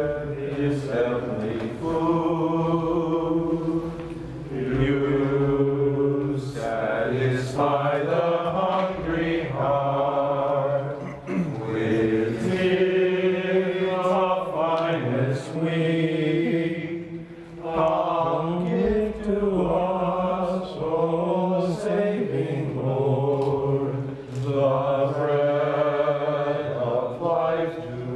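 A slow communion hymn sung at Mass, in long held phrases with short breaks between lines.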